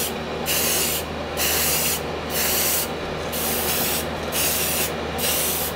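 Aerosol can of spray primer hissing in a series of short bursts, each about half a second long with brief pauses between.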